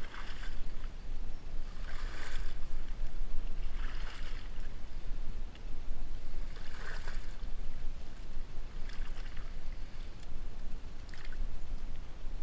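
Kayak being paddled through dense reeds: a brief swish of paddle and reed stems against the hull about every two seconds, over a steady low rumble.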